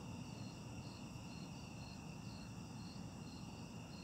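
Night insects, crickets, calling in a steady chorus: a continuous high trill with a higher chirp pulsing evenly about two to three times a second.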